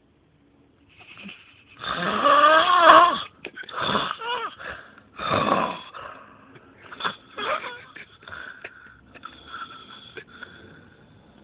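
A sleeping man snoring heavily, so loud that he sounds like an animal. Loud snores follow in quick succession starting about two seconds in, the first the loudest, then weaker, wheezing breaths toward the end.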